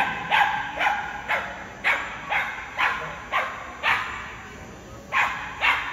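A dog barking in a steady run, about two barks a second, then two more barks after a pause of about a second near the end.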